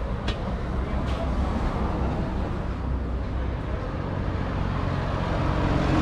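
Street traffic: a steady low engine rumble from vehicles on the road, growing slowly louder toward the end, with a couple of faint clicks in the first second.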